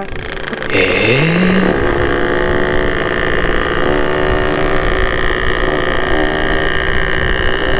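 Two-stroke motorcycle engine revving up once about a second in, then running at a steady speed while riding.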